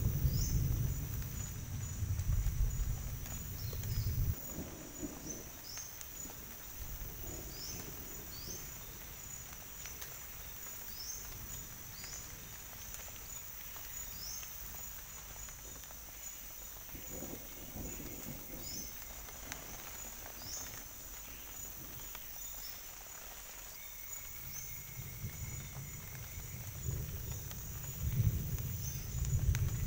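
Thunder rumbling heavily and dying away over the first few seconds, leaving a night forest chorus: a steady high insect buzz with short falling chirps repeating every second or two. Thunder rumbles up again near the end.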